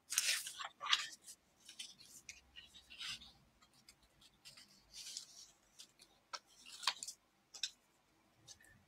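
Small scissors snipping through patterned designer paper, fussy-cutting around the printed motifs: an irregular run of short, crisp snips mixed with paper rustling.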